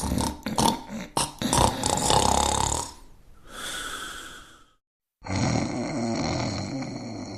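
Cartoon snoring: a loud, rattling snore on the in-breath, then a whistling breath out. After a short silence about five seconds in, a different, steadier droning snore starts.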